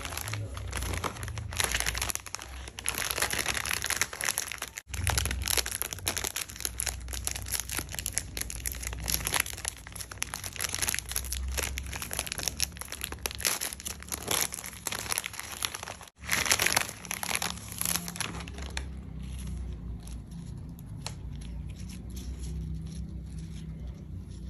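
Foil inner pouch of a Pocky box crinkling and tearing open as hands work it, a dense run of crackles, with two brief sudden drop-outs about five and sixteen seconds in.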